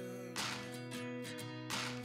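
Background music: acoustic guitar chords strummed twice, with no singing.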